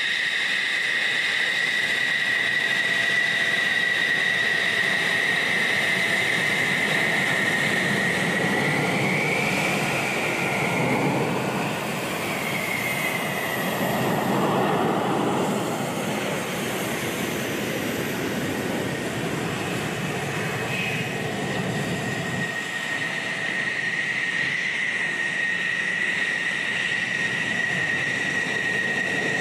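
F-16 fighter jets' turbine engines running as they taxi: a steady high whine, joined partway through by a deeper rumble as a jet passes close. The whine bends in pitch briefly while the jet passes, and the rumble drops away abruptly about three quarters of the way in.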